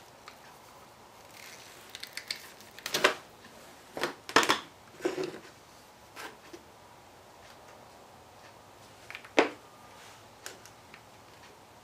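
Wire stripper and wiring handled on a workbench: a string of sharp clicks and clacks, the loudest about three to five seconds in and again near nine and a half seconds.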